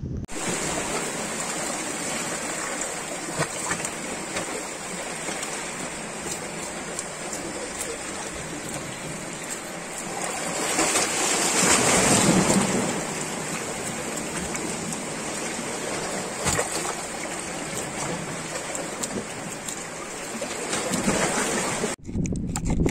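Steady rushing of water that swells louder about halfway through, then stops abruptly near the end.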